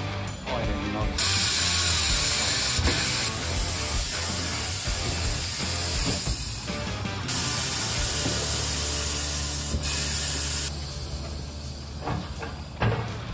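Compressed air hissing in three long blasts with short breaks between them, stopping shortly before the end, over a low steady hum.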